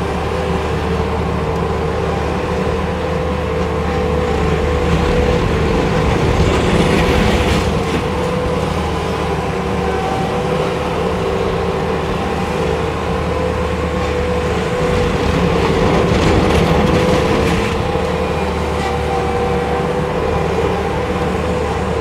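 Bobcat S250 skid steer's Kubota V3300 four-cylinder turbo diesel running steadily as the loader drives across gravel. The sound swells louder about six seconds in and again around sixteen seconds.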